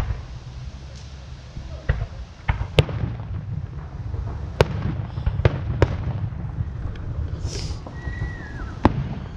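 Distant fireworks going off: about seven sharp bangs and pops at irregular intervals.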